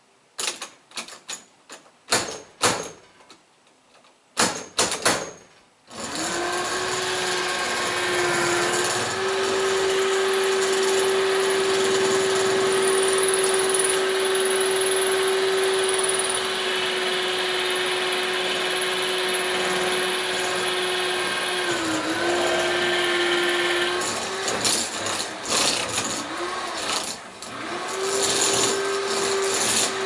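A few sharp knocks and clicks at a Defiant deadbolt. Then, about six seconds in, a power drill starts and runs steadily with a steady whine as the bit bores into the lock. Its pitch sags briefly twice near the end as the bit loads up, with uneven rattling in between.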